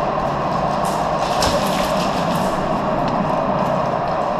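Steady loud background noise with a few faint ticks and scuffs, like gear and footsteps heard by a body-worn camera moving through the arena.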